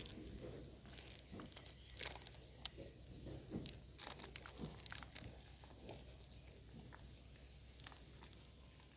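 Chocolate wrapper crinkling and tearing as it is opened: a string of faint, sharp crackles that thins out after the first few seconds.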